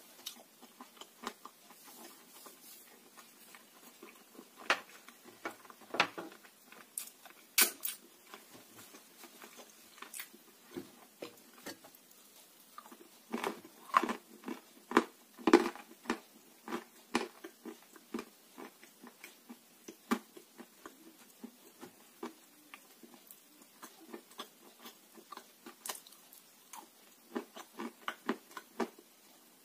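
A person biting and chewing dry clay chunks close to the microphone: irregular sharp crunches and clicks, thickest around the middle, with softer chewing between.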